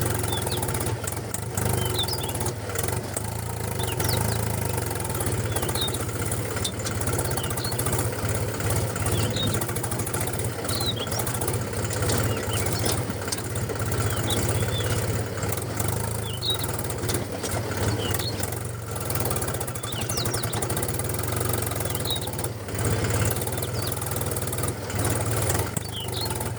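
Homemade mini tractor's motor running steadily with a low, even hum, with faint high chirps scattered through.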